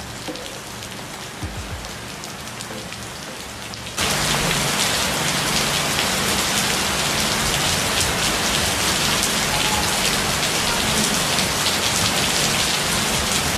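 Heavy rain falling on stone paving, leaves and roofs, a steady hiss; about four seconds in it jumps suddenly much louder and stays so.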